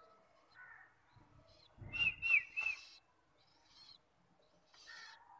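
Bird chirping: three short, high chirps in quick succession about two seconds in, with fainter scattered chirps around them.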